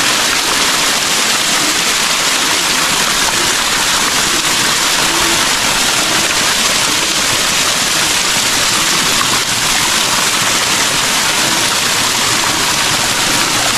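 Water pouring from a long row of metal animal-head spouts and splashing onto stone: a steady, even rush of many falling streams.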